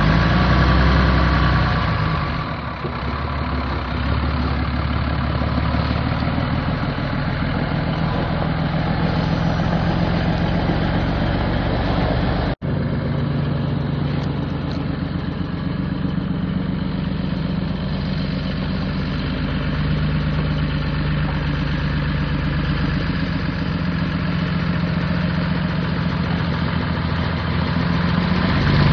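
Cummins 14-litre inline-six turbo diesel in a 1984 Ford 9000 truck idling steadily, with an even low firing beat. The sound drops out for an instant about twelve and a half seconds in.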